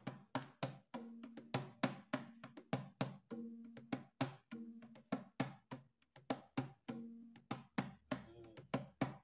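Percussive intro music: a fast, even run of sharp hits, about three a second, over a few held low notes.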